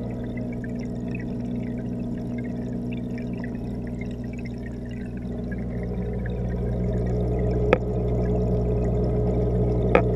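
Underwater sound inside a home aquarium, picked up through a GoPro's waterproof housing: a steady low hum with a crackle of water and bubbles over it, growing a little louder in the second half. Two sharp knocks, one about three quarters of the way in and one at the very end.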